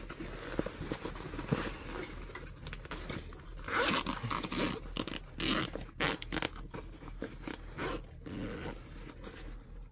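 Rustling and scraping of a 600D fabric hunting backpack being handled, with a zipper that has come loose being worked. The sounds come in irregular bursts, a little louder about four and six seconds in.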